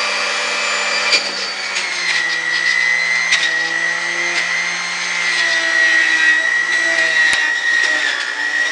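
Electric juicer motor running with a steady high whine and low hum while vegetables are pushed down its feed chute with the pusher. The pitch drops slightly about two seconds in as the motor takes the load, and there are a few short knocks from the produce and pusher.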